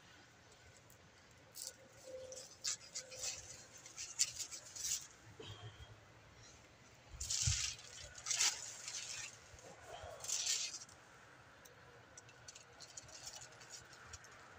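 Aluminium foil crinkling and a knife scraping and cutting through a grilled beaver tail, in irregular bursts with pauses between them, with a dull bump a little past halfway.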